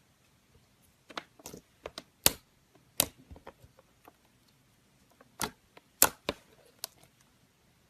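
Clear slime being pressed and squished, giving sharp popping clicks as air pockets burst, in irregular clusters of a few at a time.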